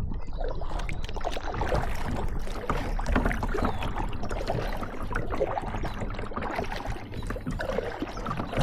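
Water splashing and sloshing around kayaks, with many small crackles over a steady low rumble.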